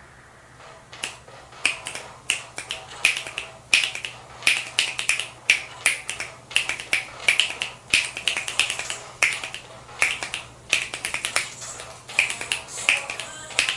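Rapid finger snaps played as percussion, a sharp rhythmic pattern of single snaps and quick rolls of several, starting about a second in.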